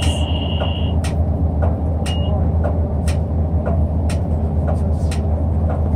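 Inside a city bus under way: the engine's steady low rumble with frequent light rattles and clicks. A high electronic beep sounds for about the first second, and a short beep about two seconds in.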